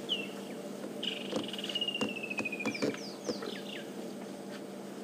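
Woodland kingfisher calling: a short high note, then a long rattling trill that slides slowly down in pitch, followed by a few quick downward-sliding whistles. A few faint snaps sound in the background.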